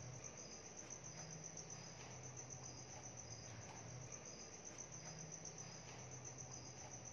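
Faint, steady cricket chirping: a high trill pulsing at an even, rapid rate, over a soft low hum.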